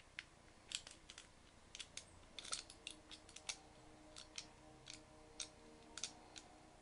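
Light, irregular metallic clicks of a small diamond pick and tension tool single-pin picking the pins of a CLUB disc lock, sometimes two or three close together.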